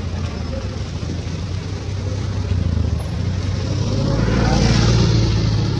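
A motor vehicle's engine running with a steady low hum, growing louder about four seconds in as it passes close by, then easing off near the end.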